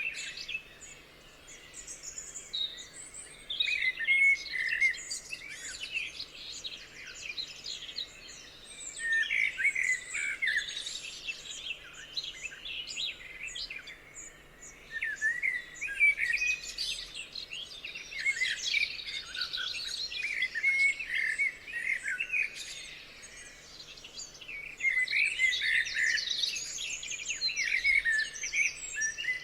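Several songbirds singing together: a busy mix of quick chirps, trills and short warbling phrases, coming in clusters with brief lulls.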